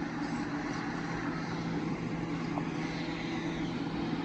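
An engine running steadily at idle, a low even drone.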